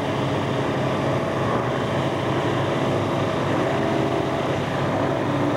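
Engines of racing powerboats running flat out at a distance, blending into a steady, even drone.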